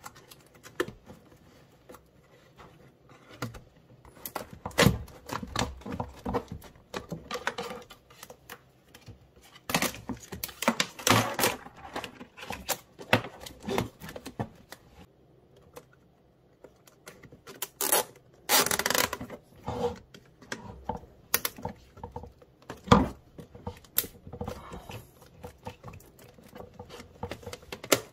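Flexible aluminium foil duct crinkling and rustling as it is pushed and twisted onto the plastic outlet of a range hood fan, with scattered clicks and knocks of handling.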